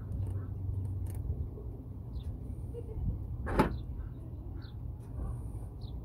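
Steady low background rumble with one sudden sharp sound a little past halfway, and a few faint short high chirps, like small birds, scattered through.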